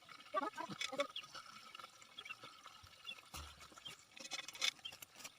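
Water splashing and dripping in short, irregular bits, with a few sharper splashes and clicks.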